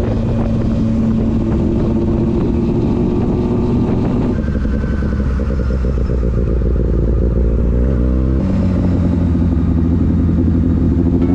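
Motorcycle engine running under way. Its note changes about four seconds in and again a little after eight seconds, then climbs slowly.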